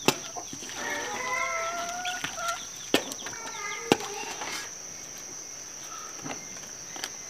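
Chickens clucking, a run of calls in the first half, fading out after about four and a half seconds. Three sharp knocks stand out: near the start and around three and four seconds in.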